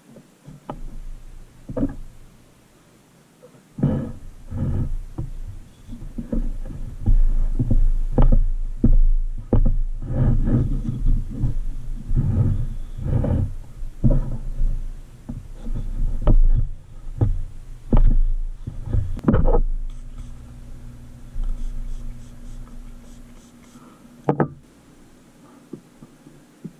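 Wooden stir stick knocking and scraping against the sides of a plastic jar while a two-part mold rubber is mixed by hand, a long run of irregular dull knocks. The knocks stop about two-thirds of the way through, leaving a faint steady hum and one sharp click.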